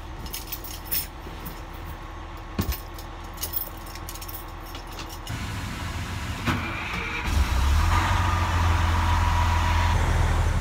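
Military truck's diesel engine running with a low, steady rumble that comes in about seven seconds in. Before it there are only small clicks and rattles from handling inside the cab.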